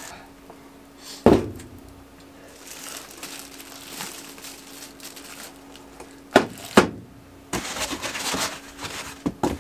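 Plastic wrapping crinkling as the plastic-wrapped parts of a resin wash-and-cure station are handled, with a few sharp knocks as pieces are set down on the table, over a faint steady hum.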